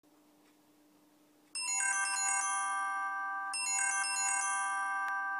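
A phone ringtone melody starts about one and a half seconds in and plays twice: each time a quick run of high notes that ring on. A faint steady hum comes before it.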